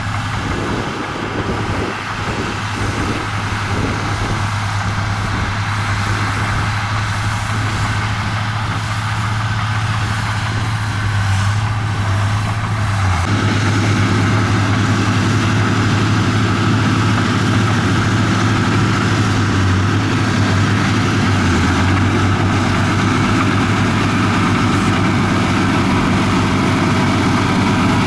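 Komatsu bulldozer's diesel engine running steadily with a deep hum, getting louder and fuller about halfway through.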